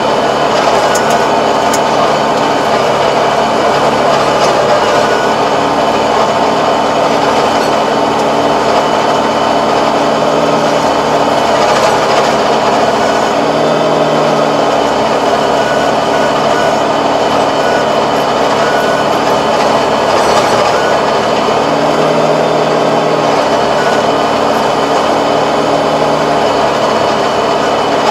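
Tractor engine running steadily under load, driving a Kobashi rotary tiller that churns through the soil, a constant dense mechanical drone with low engine tones that swell and fade now and then.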